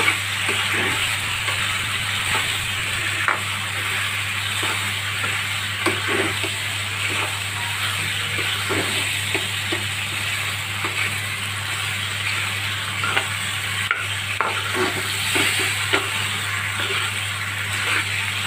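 Macaroni being stirred and tossed in a hot metal kadhai, frying with a steady sizzle, with frequent short scrapes and clicks of the metal spatula against the pan. A steady low hum runs underneath.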